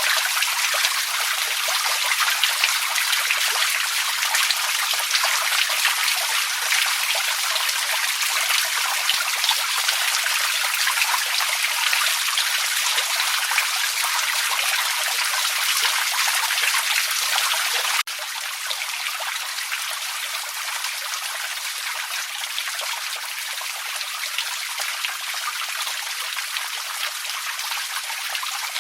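Small forest creek trickling and running steadily over its bed, a continuous water sound. About two-thirds of the way through it abruptly becomes a little quieter, and a faint low hum underneath stops.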